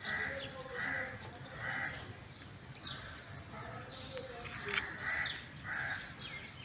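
Peafowl in an aviary giving soft, short calls, about half a dozen spaced roughly a second apart.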